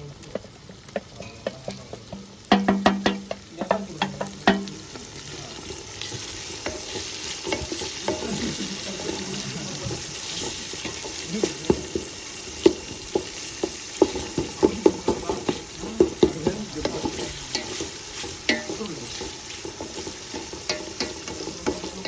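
Onions, green chillies and salt frying and sizzling in oil in a pot, stirred with a ladle that knocks and scrapes against the pot many times. A loud low pitched tone sounds for about two seconds near the start.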